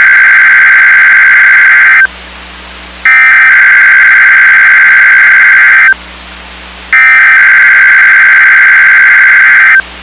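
NOAA Weather Radio SAME (EAS) header data bursts: three loud, harsh digital tone bursts of about three seconds each, about a second apart, the encoded alert header that opens the station's Required Weekly Test.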